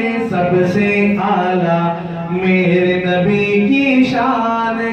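A man singing a naat unaccompanied into a microphone, drawing out long held notes that shift in pitch a few times, without pausing.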